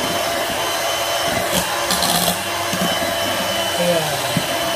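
Electric hand mixer running at a steady speed, its beaters whipping egg whites and sugar into a stiff meringue in a plastic bowl.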